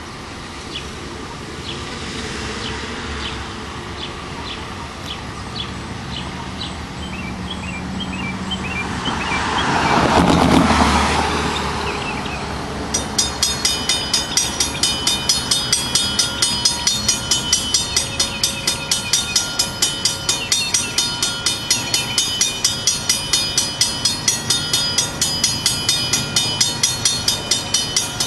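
Railroad grade-crossing warning bell starts ringing about halfway through, a steady clang of about two to three strikes a second, set off by the slowly approaching train. Under it and before it runs the low rumble of the train's diesel locomotive. Just before the bell starts, a loud rushing swell rises and fades.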